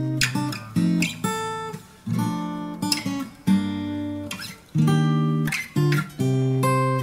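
Background music: acoustic guitar strumming chords, each chord struck sharply and ringing out before the next, about one a second.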